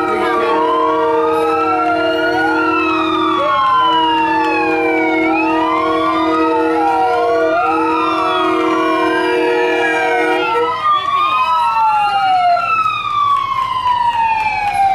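Fire truck siren wailing, several rising and falling sweeps overlapping throughout, with the truck's horn holding a steady three-note chord over it until about 11 seconds in, when the horn stops and the siren carries on alone.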